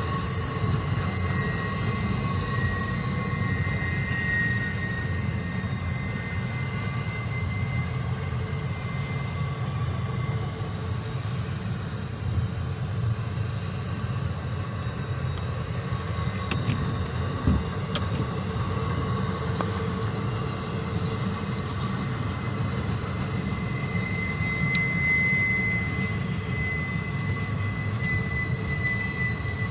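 Double-stack intermodal freight train rolling past: a steady low rumble of the well cars with a high-pitched metallic wheel squeal, loudest in the first few seconds and again near the end.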